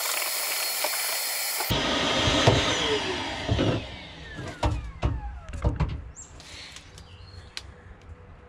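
Handheld vacuum cleaner running with a steady rushing hiss. It is switched off about two seconds in, and its motor winds down in falling whines. A few knocks follow as the vacuum is handled.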